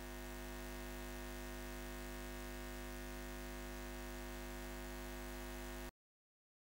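Electrical hum of a neon sign: a steady, low, buzzing drone that cuts off suddenly about six seconds in.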